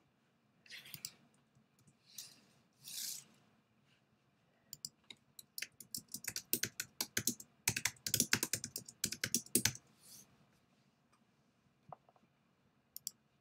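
Typing on a computer keyboard: a few short rustles, then a quick run of key clicks lasting about five seconds from about five seconds in, with a couple of single clicks near the end.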